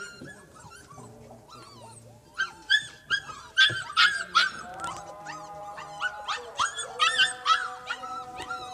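Several Siberian husky puppies whining and yipping: many short, high-pitched calls that bend up and down, few at first, then coming thick and fast from about two and a half seconds in.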